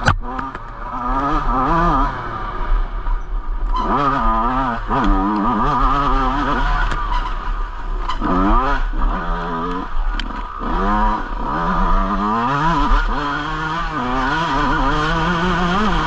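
Yamaha YZ125's single-cylinder two-stroke dirt bike engine being ridden, revving up and down again and again as the throttle is opened and closed, with a brief drop-off a few seconds in.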